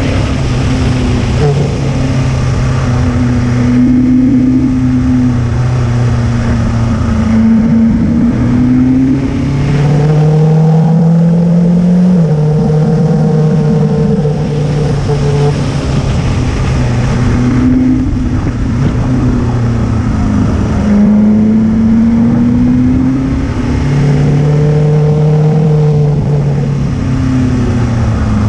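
Motorcycle engine heard from the rider's seat while climbing, its pitch rising and then dropping again several times as the rider works the throttle through the bends.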